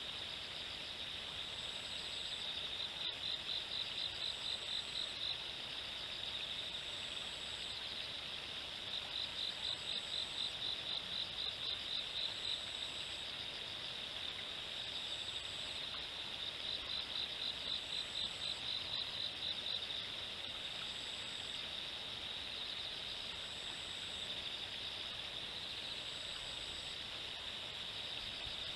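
Insects singing in a steady outdoor chorus: a fast pulsing trill that swells in bouts of a few seconds, with a short, high, thin note repeating about every two and a half seconds.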